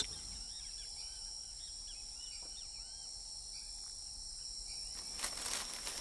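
Faint nature ambience: a steady high-pitched insect drone of crickets, with a scatter of short faint chirps in the first half.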